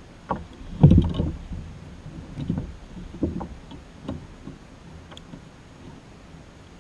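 Irregular low knocks and thumps on a plastic fishing kayak as a small caught fish is handled and unhooked; the loudest comes about a second in, the rest spread over the next few seconds.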